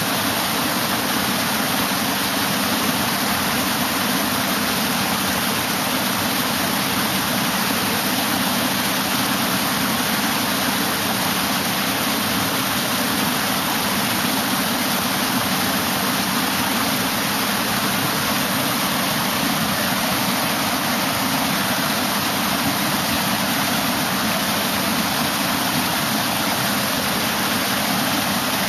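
Water rushing steadily down the concrete steps of a salmon fish ladder, pouring over each weir in a continuous even roar of falling water.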